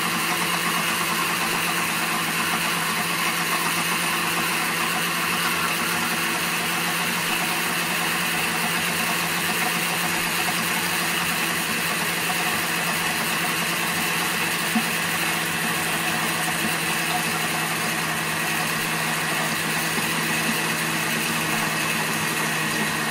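Countertop blender motor running steadily, emulsifying a thick egg-and-parmesan Caesar dressing as olive oil is drizzled in through the lid in a thin stream.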